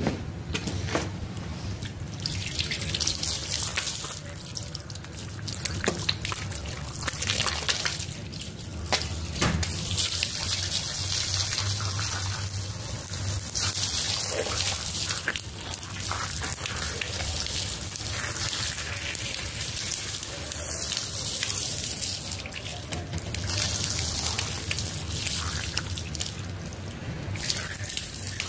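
Jet of water spraying onto a soaked rug, a steady hiss that breaks off briefly several times, with a low steady hum underneath.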